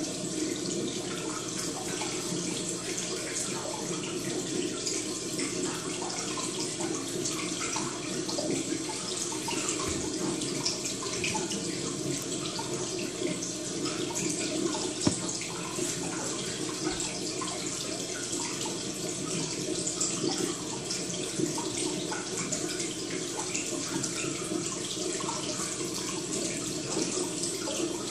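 Steady running water, with one brief tap about halfway through.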